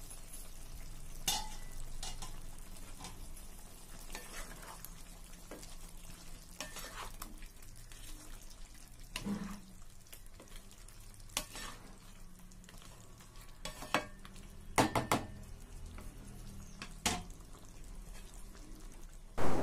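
Chicken pieces sizzling gently in oil in a pan while a wooden spatula stirs them, with scattered knocks of the spatula against the pan. A louder clank comes near the end.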